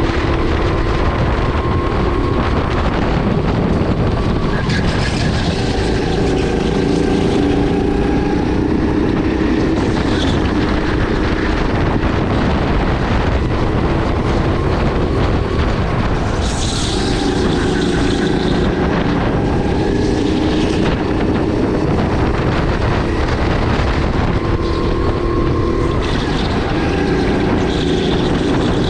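Sodi RX8 270cc LPG rental kart's single-cylinder four-stroke engine running at racing speed, its pitch rising under acceleration and dropping back several times as it brakes for corners, with wind rushing over the microphone.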